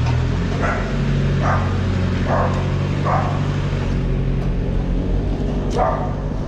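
A dog barking: four barks in the first three seconds and one more near the end. Under them runs the steady hum of an idling vehicle engine.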